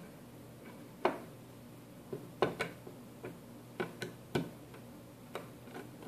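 A small screwdriver and hands clicking and tapping against a mini PC's metal case and circuit board: about ten sharp, irregular clicks.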